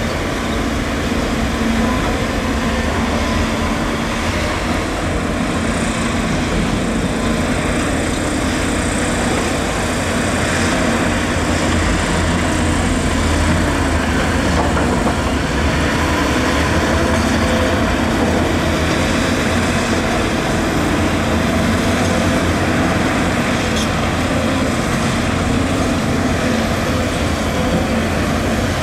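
Volvo EC250DL excavator working, its diesel engine running steadily under load as the boom and bucket dig soil.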